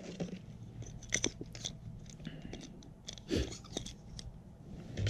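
Light scattered clicks and rustles of hands handling the mole chaser's plastic battery cap and its rechargeable D-size batteries, with a few sharper clicks about a second in and again a little past three seconds.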